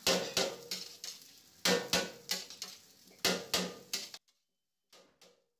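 Metal spatula knocking and scraping against a large steel wok as cooked rice is tossed and pressed, in quick groups of strikes. The sound drops away sharply a little over four seconds in, leaving a couple of faint knocks.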